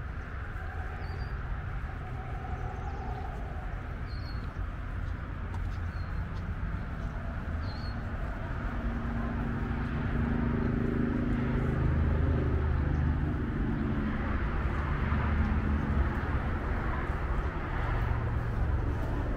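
Steady low rumble of road traffic, with a few short high bird chirps in the first half. The rumble grows louder from about halfway through.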